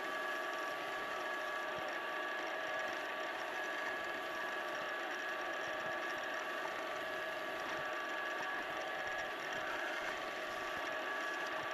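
Wood lathe running at steady speed, a constant motor hum with a steady high whine, while a bolly gum pen blank spins on it during Micro-Mesh smoothing.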